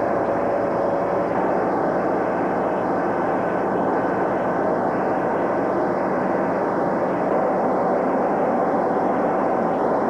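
Steady drone of a ship's engines and machinery heard on deck, a continuous mechanical hum.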